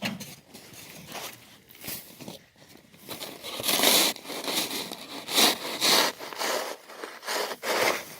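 Ice being scraped and crunched in a run of irregular strokes, each about half a second long, growing much louder about three seconds in.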